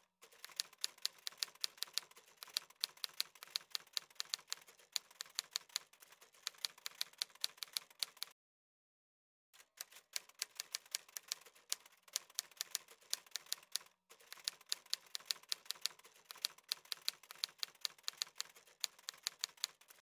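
Typewriter key clicks used as a typing sound effect: a fast, even run of keystrokes at about five a second. They stop for about a second a little before halfway, then carry on.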